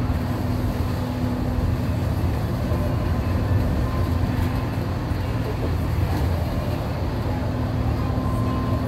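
Interior noise of a Mercedes-Benz O 305 city bus driving at a steady speed, heard from the front of the cabin: the diesel engine running with a steady low drone, mixed with road and tyre noise. A faint steady hum fades about midway and comes back near the end.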